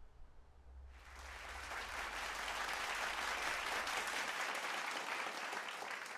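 Crowd applauding, many hands clapping together. The applause starts about a second in, swells, and begins to die away near the end.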